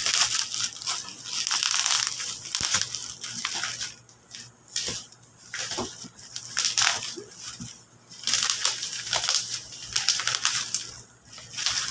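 Bubble-wrap packaging crinkling and rustling as it is pulled off a helmet box, coming in several bursts with short pauses.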